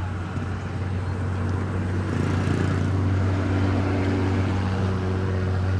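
Engine running: a steady low drone, with a louder engine note coming in about two seconds in and then holding steady.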